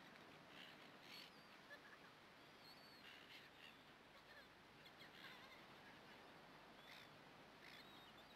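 Near silence, with faint short high-pitched chirps from birds now and then.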